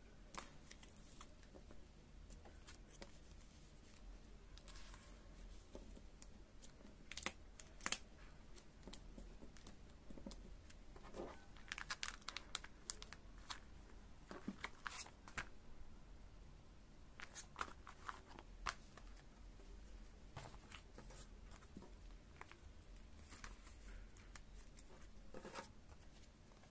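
Clear plastic binder pocket sleeves crinkling, with small clicks and taps as trading cards are handled and slipped into the pockets. Soft scattered crackles, a few sharper ones in the middle.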